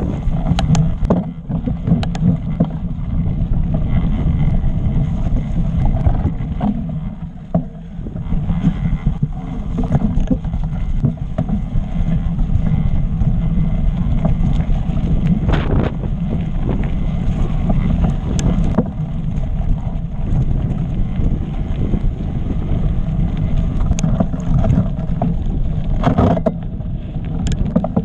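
Wind buffeting the microphone over a mountain bike's tyres rumbling along a rough, rocky trail, with scattered sharp knocks and rattles from the bike hitting rocks.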